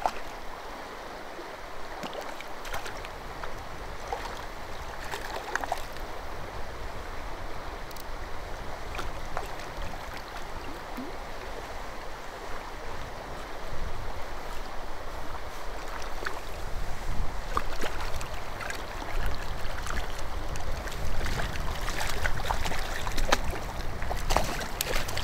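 Water splashing and sloshing close by as a hooked brown trout is played at the surface near the shore rocks, with scattered short splashes. Wind noise on the microphone grows louder in the second half.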